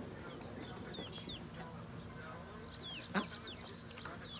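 Backyard hens calling: a run of short, high chirps falling in pitch, with one louder, sharper call about three seconds in.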